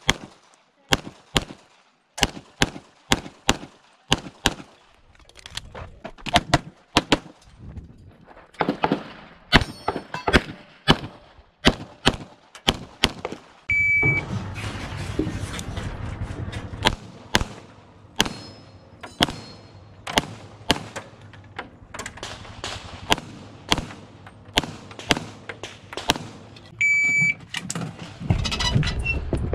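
Strings of pistol shots from a practical-shooting handgun, about two a second, with the shot timer's short electronic start beep twice, about halfway through and near the end.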